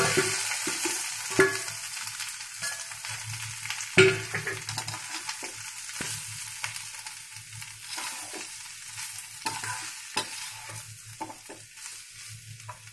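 Boiled potato pieces frying in hot oil in a kadhai, sizzling while a perforated metal spoon stirs and scrapes them against the pan, with a sharp knock of the spoon about four seconds in. The sizzle slowly dies down.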